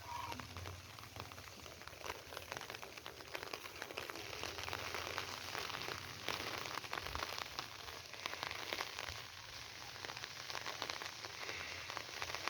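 Steady rain falling and pattering on the ground and surfaces, a dense crackle of many small drops.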